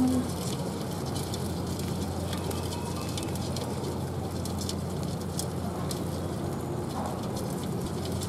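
Gas burner running steadily under a large aluminium pot of freshwater crabs, with faint scattered crackling from the crabs cooking in the hot pot.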